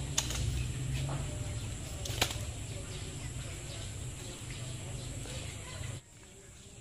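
Rustling on dry leaf litter with two sharp slaps, one just after the start and one about two seconds in, over a thin steady high whine; the sound drops away abruptly near the end.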